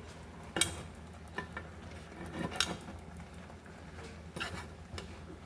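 Scattered clinks and knocks of dishes and utensils being handled, a handful of separate strikes over a low steady hum.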